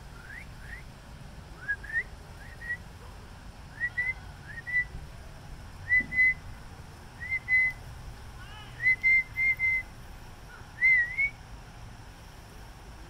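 A person whistling over and over to call a dog back: short whistles that rise and level off, often in quick pairs, every second or two.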